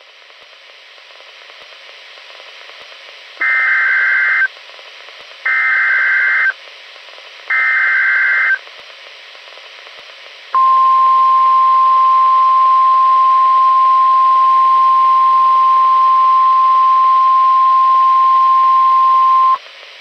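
Re-created NOAA Weather Radio emergency alert over a hiss of radio static: three SAME header data bursts of about a second each, then the steady 1050 Hz warning alarm tone held for about nine seconds, signalling that a warning broadcast follows.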